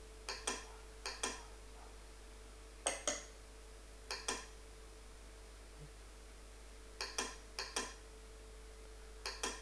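Computer mouse clicking: about seven pairs of sharp clicks, each pair a fraction of a second apart, at irregular intervals. A faint steady hum runs underneath.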